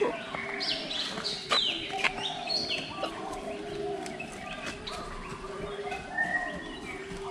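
Many birds calling at once in an aviary: quick chirps and whistles, busiest in the first three seconds.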